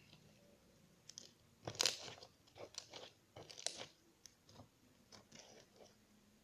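Homemade slime being squeezed and stretched by hand, giving off irregular sticky crackles and small pops, loudest about two seconds in and again near four seconds.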